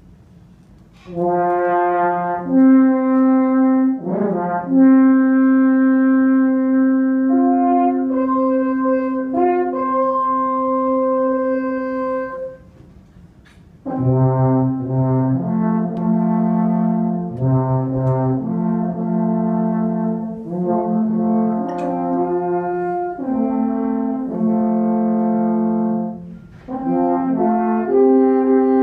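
Two long, straight wooden natural horns played as a duet of held notes, with a short pause about halfway through.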